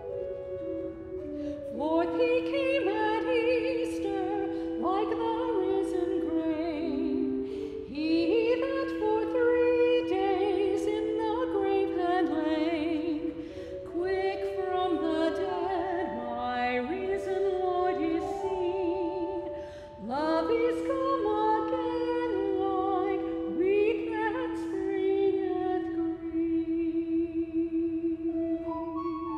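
A woman sings a solo in an operatic style, with vibrato, accompanied by a church organ holding sustained chords. The organ plays alone at first, and the voice comes in about two seconds in, pausing briefly twice between phrases.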